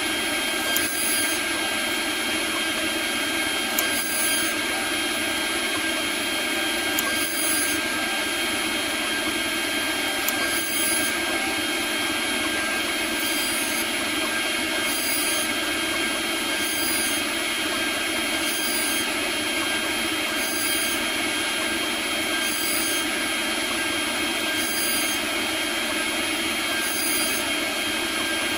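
Robotseed CNC router spindle running with a steady high whine while a small end mill cuts Delrin, with a steady cutting hiss. The upper part of the hiss brightens briefly every second or so.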